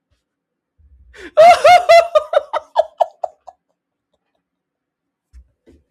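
A person's loud, high-pitched burst of laughter, a quick run of ha-ha pulses that trails off over about two seconds, in delight at a goal.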